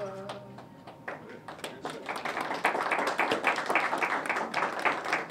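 A small group of people applauding, a few scattered claps at first that thicken into steady applause about two seconds in.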